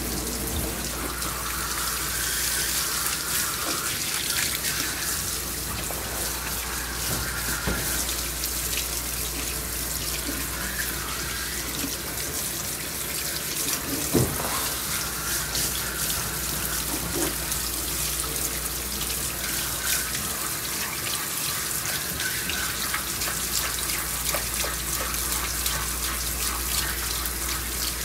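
Water spraying steadily from a hand-held hose nozzle and splashing onto a dog's coat and into a bathtub. A single short knock about halfway through.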